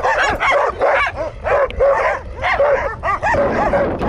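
Shepherd dogs barking at passing cyclists in a rapid run of short barks, about two to three a second.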